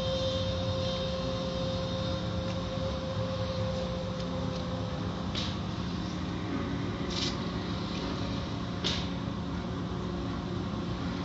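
Automatic car wash heard from inside the car: water and the wash's cloth strips washing over the windshield, with the wash machinery running in a steady low hum. Three brief high hisses come in the second half.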